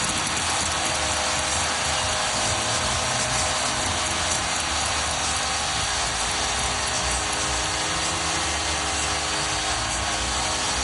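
Packed ice-hockey arena crowd cheering loudly and steadily as the home team scores.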